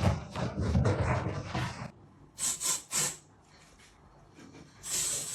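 A pet animal's noises: about two seconds of busy scuffling, then three quick breathy, hissy puffs, and a longer one near the end.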